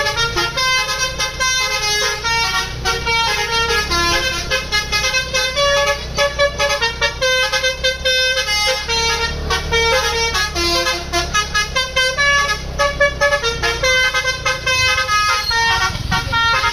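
Basuri V3 multi-tone telolet bus horn playing a fast melody of short notes that step up and down without pause, over the low running of a bus engine.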